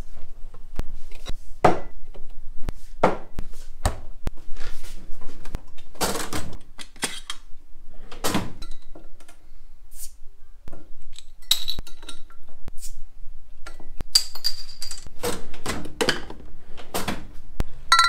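Handling noises: a string of knocks, thuds and clinks as a small fridge is opened and glass beer bottles are taken out and set down on a stone counter. It ends with two glass bottles clinked together, a short ringing clink.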